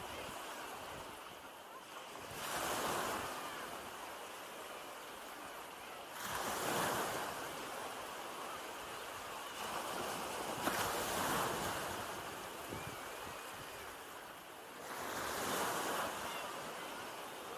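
Small sea waves breaking and washing up the sand at the water's edge, the surf swelling and fading four times, about every four seconds.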